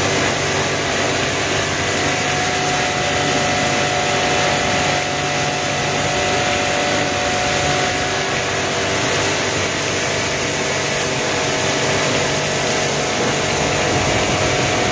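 Pressure washer running steadily, its motor humming under the hiss of the water jet spraying the coil of a split AC outdoor unit during an AC service cleaning.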